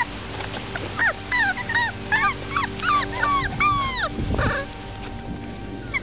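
Five-week-old beagle puppies whining and yipping: about ten short, high cries that bend in pitch, coming fast one after another from about a second in, followed by a low thump.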